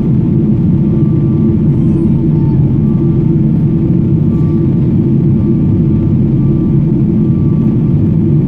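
Boeing 777-200ER jet engines and airflow heard from inside the passenger cabin as a steady, loud, low drone in flight, with a few faint whining tones above it.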